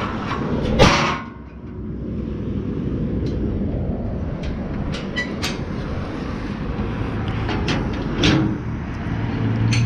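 Heavy steel trailer ramps being handled and set down: a loud metal clank about a second in, lighter knocks and rattles in the middle, and another clank near the end, over a steady low rumble.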